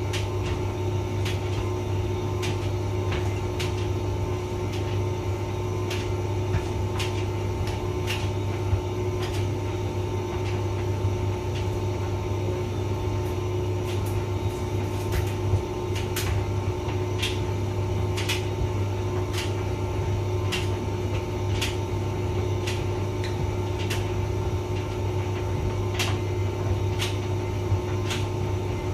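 Hotpoint vented tumble dryer running: a steady motor and drum hum with light clicks about once a second as it turns.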